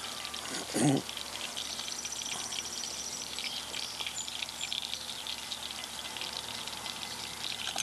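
Melted butter sizzling in a small pot on a hot portable burner, a steady fine crackle.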